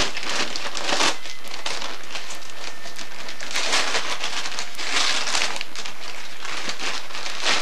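Christmas wrapping paper being torn and crumpled off a large present, in repeated bursts of ripping and crinkling.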